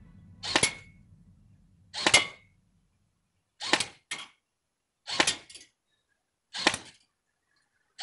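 Five sharp gunshots about a second and a half apart, two of them followed a moment later by a fainter knock.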